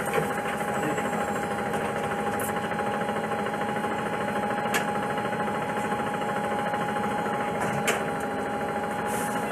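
Cummins C Gas Plus natural-gas inline-six of a 2006 Orion VII CNG transit bus idling steadily, with a constant whining tone over the engine note. Two brief clicks come about halfway through and near the end.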